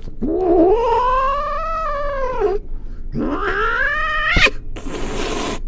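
Domestic cat yowling in two long, drawn-out calls that rise and fall in pitch, as if answering a question. A sharp click and a short burst of hissing noise follow near the end.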